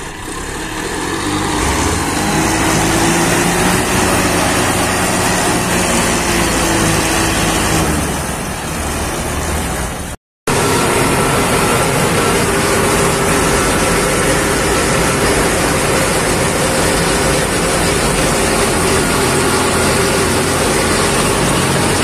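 Heavy farm diesel engine running hard in a muddy paddy field, revving up over the first couple of seconds and then holding at high revs. The sound breaks off for a moment about ten seconds in and then carries on steadily.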